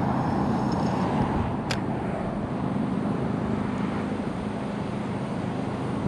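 Steady low rumble of road traffic from a nearby highway, with one short sharp click about two seconds in.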